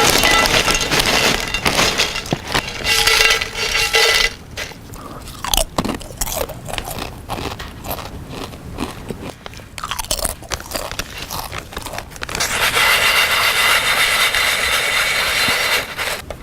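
Loud crackling and crunching from food, in two long stretches of several seconds with softer clicks and crunches between.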